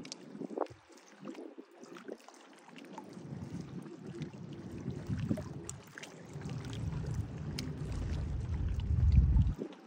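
Sea water lapping and splashing, with a low wind rumble on the microphone that grows louder over the last few seconds and drops away suddenly just before the end.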